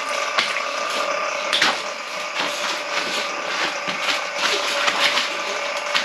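Electric drain-cleaning machine running steadily on a backed-up kitchen sink drain, with irregular knocks and rattles over its steady hum.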